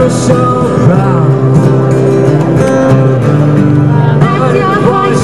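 Music with acoustic guitar and a singing voice, playing steadily.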